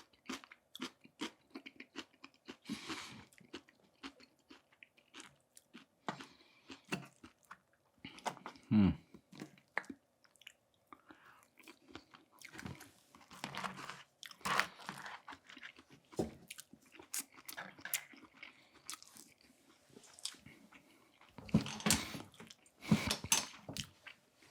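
Close-miked chewing and crunching of food, many crisp crunches and mouth sounds at irregular intervals, with louder clusters about a third of the way in, around the middle and near the end.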